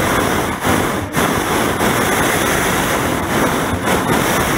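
Hot air balloon propane burner firing in a long, steady roar overhead, with two brief dips about a second in.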